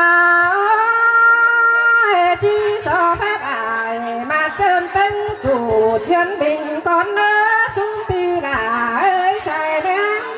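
A woman singing a slow melody, holding long notes and sliding between them with ornamented turns, with no clear instrumental backing.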